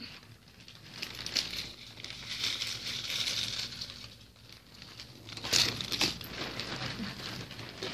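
Rustling and crinkling as bags and clothing are handled, with a few sharper crackles about five and a half seconds in.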